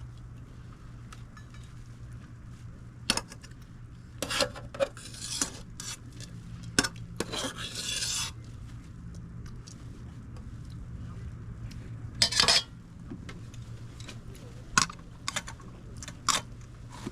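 Metal utensils clinking, knocking and scraping against a pot as ramen is stirred and served, in scattered strokes with a few longer scrapes. A steady low hum runs underneath.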